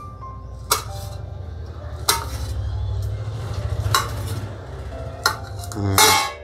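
A knife cutting green chillies and coriander on a steel plate, with sharp metallic clicks every second or so and a louder ringing clatter near the end.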